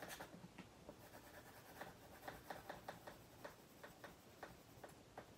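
Colored pencil strokes on drawing paper, lightly colouring in: faint, irregular scratchy ticks, several a second.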